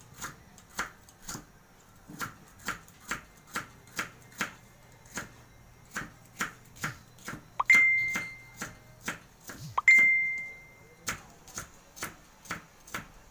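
A knife slicing bitter gourd into thin rings on a wooden chopping board, steady chops about two a second. Twice, just past the middle, a high ringing ping sounds out and fades over about a second; these are the loudest sounds.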